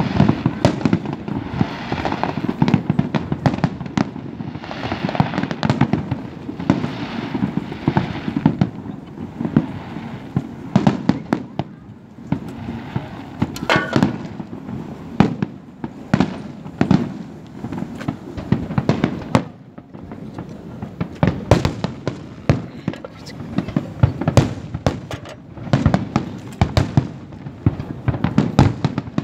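Fireworks going off in a dense string of sharp bangs and crackles, coming in clusters with brief lulls.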